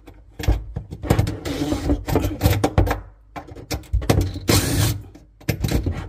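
DeWalt cordless driver running in short bursts as it backs out the screws holding a metal drawer slide, with clicks and knocks between the bursts.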